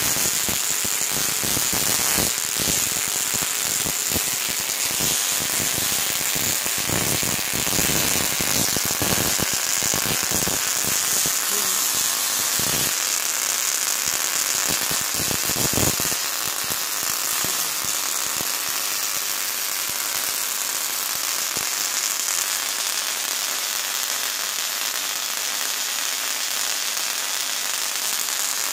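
Homemade spark-gap Tesla coil running, its electric arcs crackling and buzzing continuously. The crackle is dense and rapid at first and eases into a steadier hiss about halfway through.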